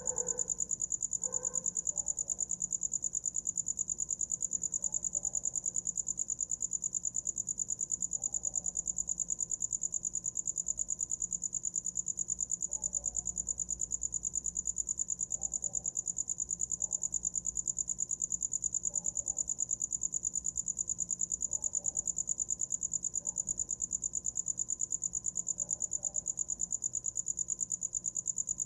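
A cricket singing: one unbroken, high-pitched trill made of fast, evenly spaced pulses that never stops or changes.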